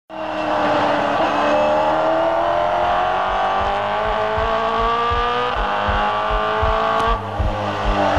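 Race car engine accelerating, its pitch climbing steadily and dropping at gear changes about five and a half and seven seconds in. A steady low drum beat comes in under it about halfway through.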